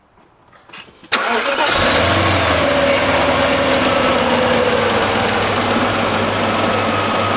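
Audi S8's 4.2 V8 started: a few faint clicks, then about a second in it fires almost at once and flares up before settling to a steady idle, its pitch falling as it settles. It starts and runs on a replacement BMW ignition coil fitted in place of the shorted coil on cylinder five, with the fuse holding.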